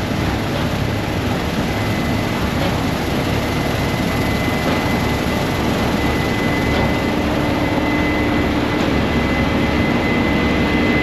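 Combine harvester running steadily in the field, a broad engine and machinery noise with a faint steady whine above it.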